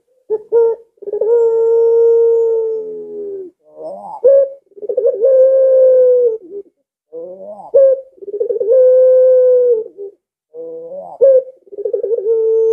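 Barbary dove (puter pelung) cooing: four coos in a row, each opening with a few quick clipped notes and drawn out into one long held note that drops away at the end.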